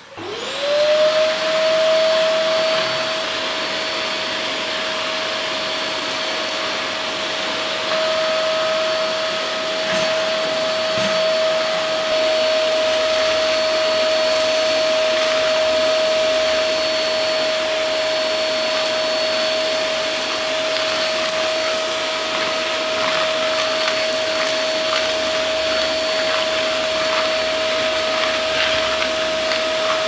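Eureka Forbes Quick Clean DX 1200-watt canister vacuum cleaner switching on, its motor whine rising to a steady pitch within the first second, then running loud and steady while its floor tool sucks up dirt from a tiled floor, with small ticks of grit going up the pipe.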